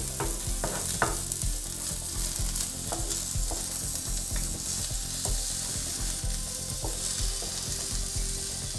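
Carrot strips sizzling in sesame oil on a teppanyaki griddle plate, with a steady high hiss, while a wooden spatula turns them, scraping and clicking against the plate many times.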